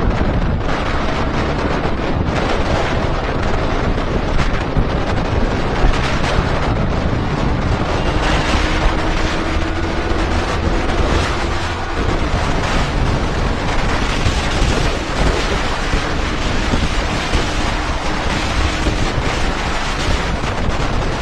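Heavy wind buffeting on the microphone of a motorcycle riding at speed. A faint engine note under it rises slowly in pitch twice.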